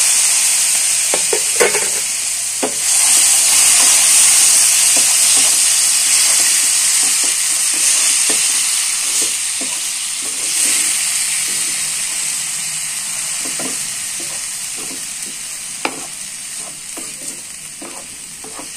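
Chopped tomatoes sizzling loudly in hot oil in a frying pan, freshly added to the fried onion and spice masala, with a spatula scraping and stirring. The sizzle slowly dies down.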